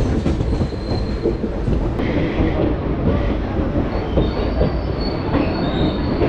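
Passenger train running into a station, heard at the coach's open door: a steady loud rumble and clatter of the wheels on the rails, with thin high squeals from the wheels coming in about two-thirds of the way through as it slows.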